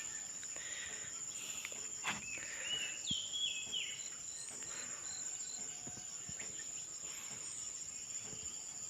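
Steady high-pitched insect buzz, with a short stepped bird call two to four seconds in and a few faint clicks.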